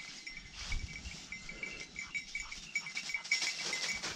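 Footsteps and brushing through dry leaf litter and undergrowth, with a thin, high, steady ringing tone that flickers quickly throughout.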